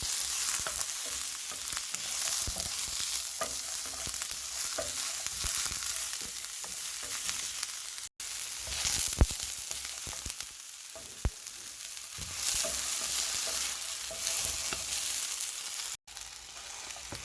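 Chopped onion sautéing in a hot pan: a steady sizzle, with a few knocks of a utensil stirring it. The sound cuts out for an instant twice.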